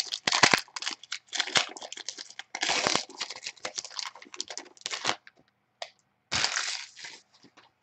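Foil wrapper of a Prizm basketball card pack being torn open and crinkled, with the cards then worked out of it. The sound comes as a run of irregular crinkling and tearing bursts with short pauses between them.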